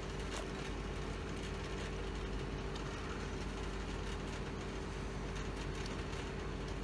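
Steady low hum with a faint steady tone running through it: background machine or room hum with no distinct events.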